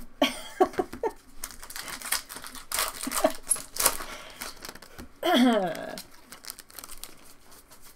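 Foil Pokémon booster pack wrappers crinkling and tearing open, with quick clicking and rustling. Brief voice sounds come near the start, and a short vocal exclamation falling in pitch comes about five seconds in.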